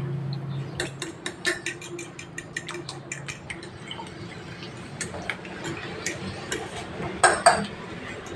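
Metal fork beating raw eggs in a ceramic plate, the tines clicking rapidly against the plate for the first few seconds, then more sparsely, with two louder clinks near the end.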